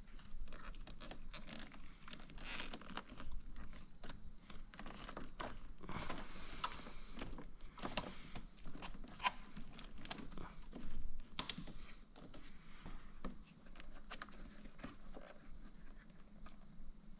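Hand work on parts and tools: scattered clicks, taps and rustling, with a sharper knock about eight seconds in and a short rattle about eleven seconds in, over a faint steady high whine.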